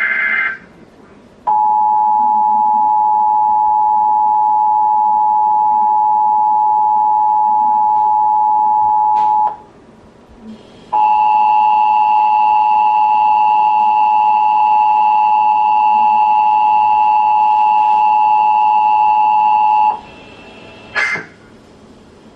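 Emergency Alert System broadcast tones. The end of a digital header burst gives way to the two-tone EAS attention signal, two steady pitches sounded together for about eight seconds. After a short pause a second stretch of the attention tone, with a higher tone added, runs for about nine seconds. A brief data burst follows near the end, with no voice announcement between the tones.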